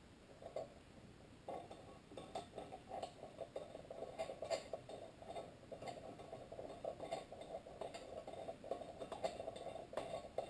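Faint, irregular metallic clicking and scraping as a connecting rod cap is handled and fitted onto a crankshaft journal.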